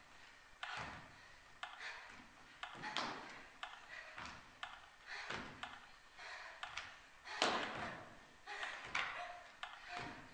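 Performers' feet running, stamping and landing on a stage floor and crash mats: a string of irregular thumps and knocks with short noisy rushes in between.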